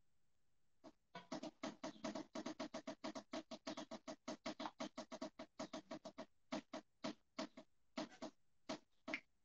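A rapid, irregular series of sharp clicks or taps, several a second, starting about a second in and thinning to scattered taps after about six seconds.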